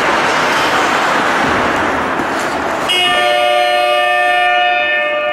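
Ice hockey arena horn sounding a steady, multi-toned blast for about two and a half seconds, starting suddenly about three seconds in, over a steady rushing rink noise.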